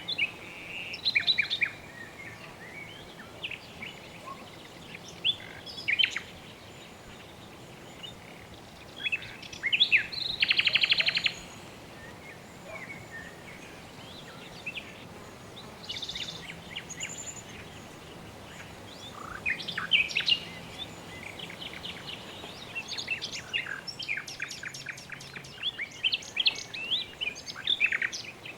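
Birds chirping and calling in short, scattered bursts over a steady background hiss. A fast rattling trill comes about ten seconds in, and a busier run of calls comes near the end.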